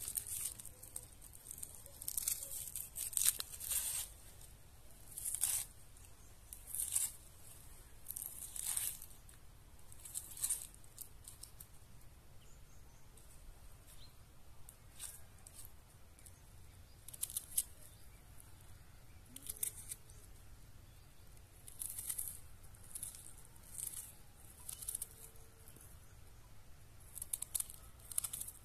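Knife cutting fresh salad vegetables, cucumber, tomato and onion, in short crisp strokes, irregular, roughly one a second with some quick runs.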